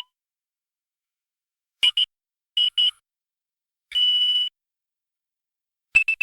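Passport scanner beeping in short electronic beeps: two quick double beeps, then one longer, harsher beep of about half a second, then three rapid beeps near the end.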